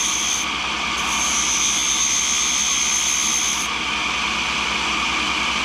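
Cincinnati No. 2 tool and cutter grinder running, with a steady whine from the spindle and wheel. A brazed carbide tool held by hand against the diamond wheel gives a high grinding hiss that breaks off briefly about half a second in and stops about two-thirds of the way through.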